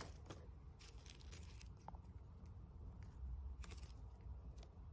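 Faint handling noise of coiled PVC-insulated wire being handled: a few brief rustles and light clicks scattered over a low steady rumble.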